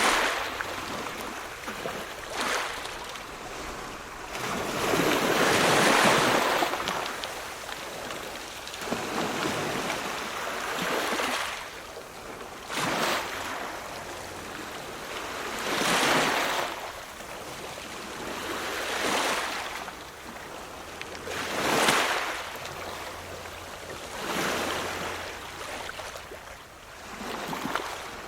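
Ocean waves breaking: one surge of surf after another, each swelling and fading, about every three seconds.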